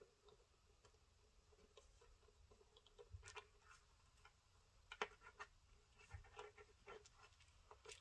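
Faint, scattered clicks and ticks of small metal construction-kit parts and hand tools being handled while nuts and bolts are tightened.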